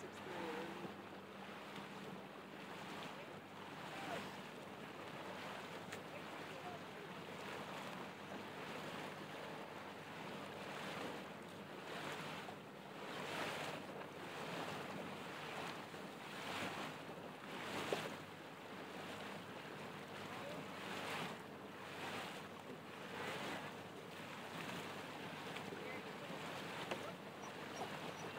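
Water swishing and splashing close to a small boat, swelling every second or two, over the low steady hum of a small outboard motor.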